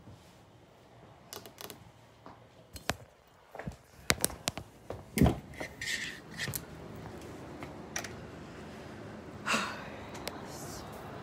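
Handling noise from a phone being picked up and carried against clothing: a series of irregular clicks and knocks, with fabric rubbing over the microphone. A steady background noise comes up about halfway through.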